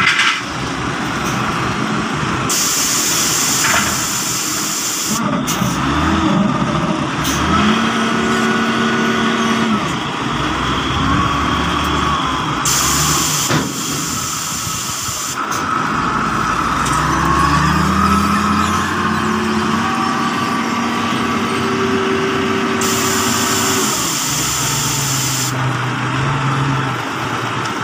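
Engine of a large Toyota forklift revving up and down as it lifts and carries a bundle of steel reinforcing bars, with three bursts of high hiss.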